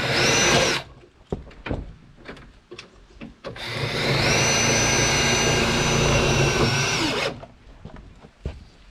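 Power drill running self-drilling tek screws in: a short run that stops under a second in, then a steady whine for nearly four seconds that winds down at the end. Small clicks fall between the runs.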